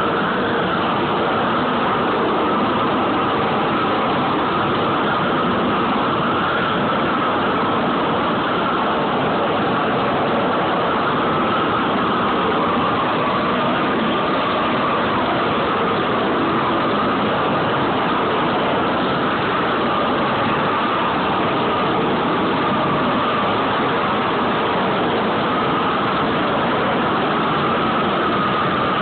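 Gas torch on a long wand burning with a steady rushing noise that holds the same level throughout, without breaks.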